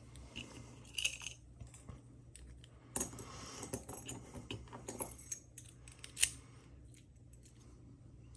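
Small metal parts of a picked padlock being handled, giving a few sharp clicks and clinks at irregular moments with light rattling between them.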